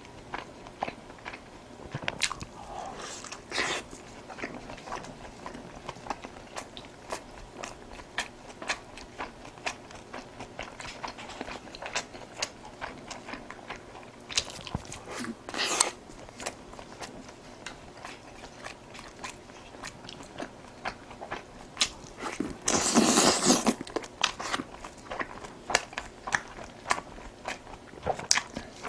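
Close-up chewing and biting of food, with many small wet mouth clicks and crunches. A louder rush of noise lasting about a second comes about two-thirds of the way through.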